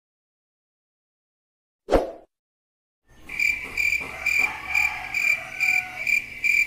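Cricket chirping in a steady, evenly spaced pulse of high notes, a little over two a second, starting about three seconds in. About two seconds in there is a single brief thud.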